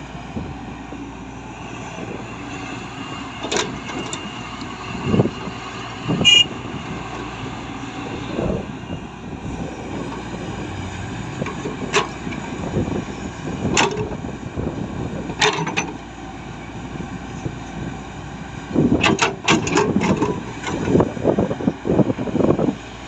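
Diesel engine of heavy earthmoving machinery running steadily, with scattered short knocks and clanks. There is a brief high squeal about six seconds in, and a louder, irregular spell of clatter from about nineteen seconds in.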